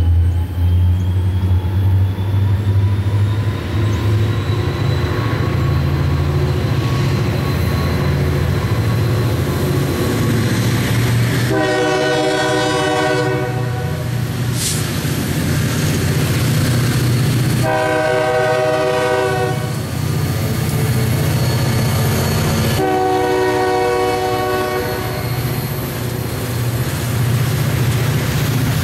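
CSX diesel locomotives rumbling as they approach and pass at the head of a welded rail train, sounding three long horn blasts in the second half, with a fourth starting just at the end. A single sharp click comes between the first two blasts.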